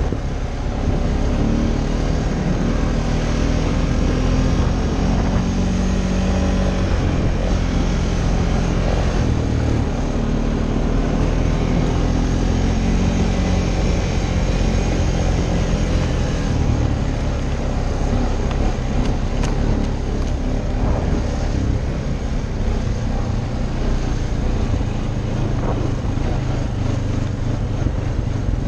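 Honda ATV's single-cylinder engine running as it is ridden along a dirt trail, its pitch rising and falling with the throttle.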